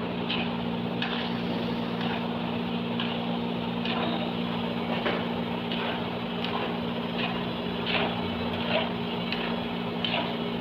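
Ragi nachos sizzling as they deep-fry in a large kadai of hot oil, over a steady low hum. The wire spider strainer and ladle give short, irregular scrapes and clinks against the pan.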